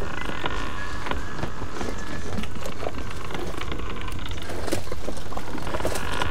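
Sound-design soundtrack of a projection-mapping light show: a steady rushing noise with many scattered crackles and clicks and faint held tones.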